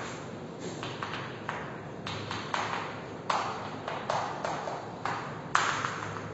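Chalk tapping and scratching on a blackboard as a formula is written: a string of short, irregular strokes, the loudest near the end.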